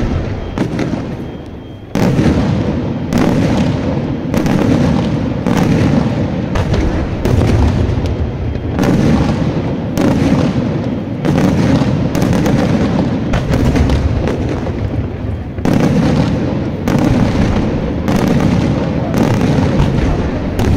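Daytime fireworks display: a sustained barrage of loud bangs about once a second, with crackling and rumbling filling the gaps between them. There is a short lull about two seconds in.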